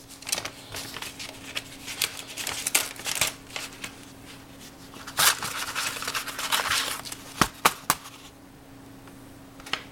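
Paper mailing envelope being cut and torn open with a knife: irregular rustling and crinkling with sharp clicks and scrapes, dying down about eight seconds in.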